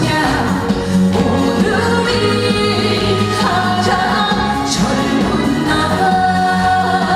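Trot song performed live: a woman singing held, wavering notes over full band backing.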